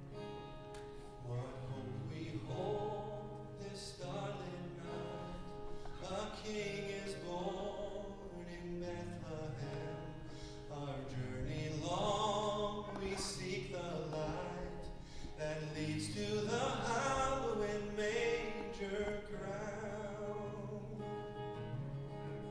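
Live Christmas concert music: singing with vibrato over acoustic guitar accompaniment.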